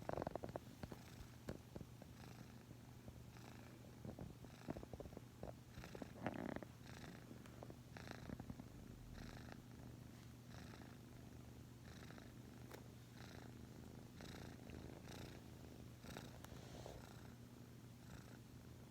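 Sleeping domestic cat purring with a snoring edge: a faint, steady low rumble that pulses with its breathing a little faster than once a second. A brief louder sound comes about six seconds in.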